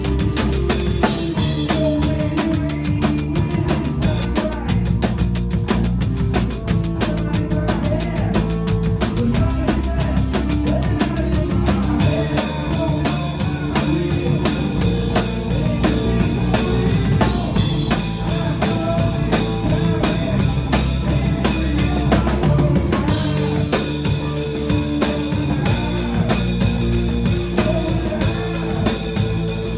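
Rock band playing live: drum kit with bass drum and snare, over guitar and bass. A fast ticking cymbal pattern drops out about twelve seconds in, while the band plays on.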